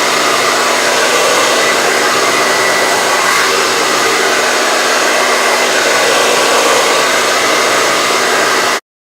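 Handheld hair dryer running at full blast: a loud, steady rush of air with a faint motor whine, stopping suddenly near the end.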